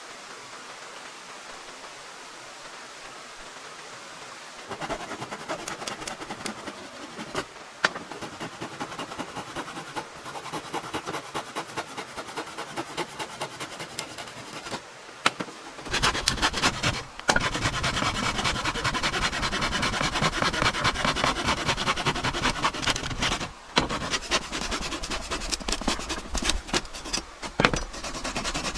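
Wood being worked with a tool: quick repeated rubbing strokes start about five seconds in and turn louder and denser about sixteen seconds in, with a short break near twenty-four seconds.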